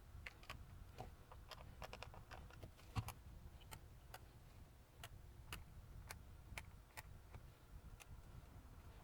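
Faint, irregular clicks and taps of small plastic and metal parts being handled, one louder knock about three seconds in, as the multimeter is put back together.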